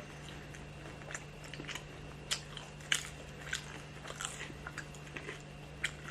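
A person biting and chewing crisp fried lumpia (spring rolls), with scattered small crunches and crackles throughout over a faint steady hum.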